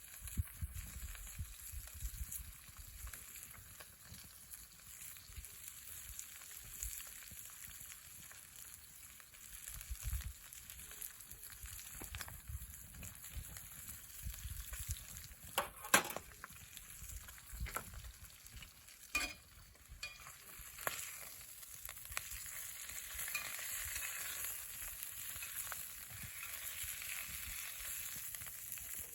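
Sizzling and crackling at a wood campfire, with scattered sharp pops, the loudest about halfway through. The hiss swells in the last few seconds.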